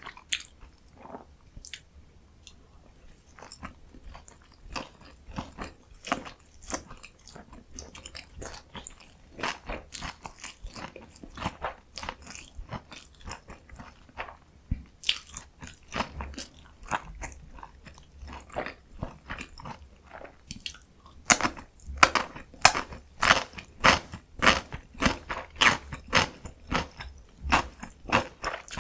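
Close-miked eating sounds: a person biting and chewing food, with wet mouth clicks and crunches. About two-thirds of the way through the chewing gets louder and faster, about two crunchy chews a second.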